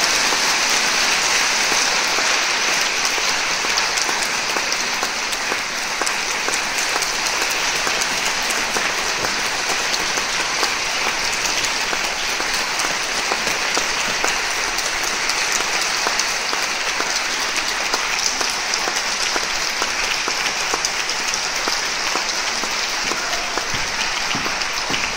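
Audience applauding, a dense, steady clapping that eases slightly toward the end.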